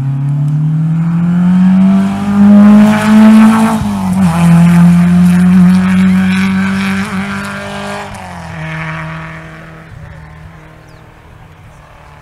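Historic rally car's engine revving hard as it accelerates past at full throttle, rising in pitch, with a sharp drop at a gear change about four seconds in and another about eight seconds in. It then fades steadily as the car pulls away into the distance.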